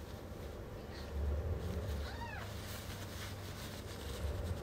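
Newborn kitten giving one short, high mew that rises and falls, about two seconds in, over a low steady rumble.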